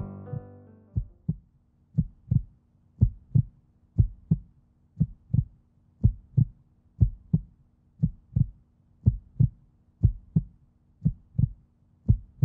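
Heartbeat sound effect: pairs of low lub-dub thumps about once a second, steady throughout, over a faint hum. Piano music fades out in the first second.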